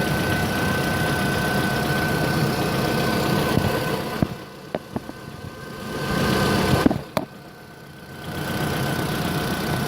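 Opel Z18XER 1.8-litre four-cylinder petrol engine idling, with a steady high whine over the engine sound: an extraneous noise the owner is trying to track down. The sound drops away twice, about four and about seven seconds in, with a few sharp clicks.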